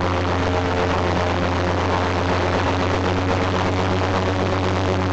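Il-14's Shvetsov ASh-82T fourteen-cylinder radial piston engine, cowlings off, running steadily with its propeller turning during a ground run-up, a deep, even drone.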